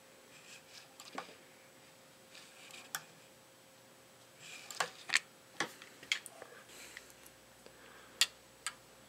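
Sharp metallic clicks from Zastava M92 PAP (AK-pattern) trigger parts being worked by hand, about eight clicks spread unevenly with a quick cluster in the middle, and soft handling rustles between them.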